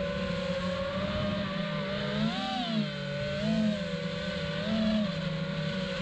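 FPV quadcopter's iFlight Xing 2306 2450kV brushless motors whining as they spin Ethix S4 props, the pitch swelling and dropping with throttle: one clear rise and fall about two and a half seconds in, and smaller swells twice after it.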